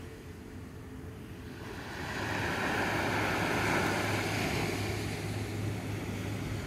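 Sea waves washing up the beach, a steady surf hiss that swells about two seconds in and then eases a little.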